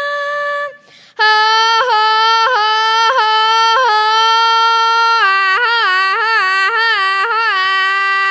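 A boy singing a wordless held call from a Colombian llanero cattle work song. One long note keeps flipping up in a yodel-like break about every 0.7 s, turns into quick warbling ornaments in the second half, then settles into a steady held tone near the end.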